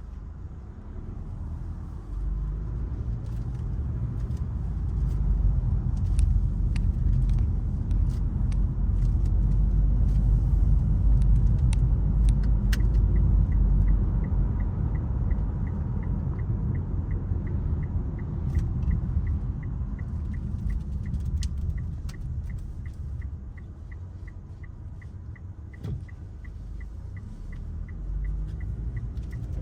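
Mitsubishi Outlander rumbling inside the cabin on the move, the rumble swelling over the first few seconds and easing off after the middle. About halfway through, a turn-signal indicator starts ticking steadily, two to three ticks a second.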